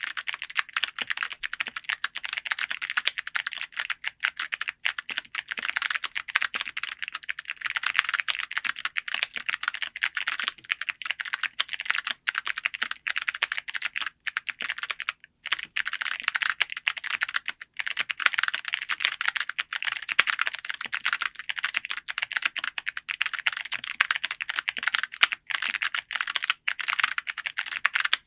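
Fast, continuous typing on a mechanical keyboard fitted with full-metal, black-titanium-plated keycaps, the strokes running together with one brief pause about halfway through.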